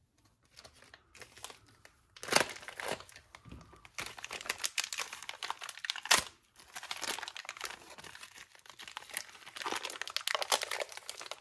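Clear plastic parts bag crinkling as it is handled and worked open in the hands, with irregular crackles and two sharper, louder crackles about two and six seconds in.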